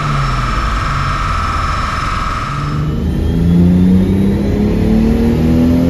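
Turbocharged Toyota 2JZ straight-six running under load on a chassis dyno, first holding a steady speed with a high whine, then from about three seconds in pulling hard with the revs climbing steadily. The sequential twin-turbo setup's actuators are not all working, so the engine makes only partial boost.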